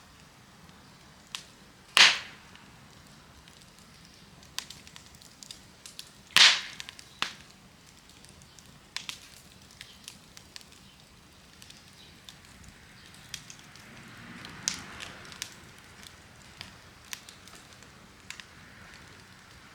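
Wood fire crackling, with sharp irregular pops; two loud snaps stand out, about two seconds in and again about six seconds in, and a brief hiss comes partway through.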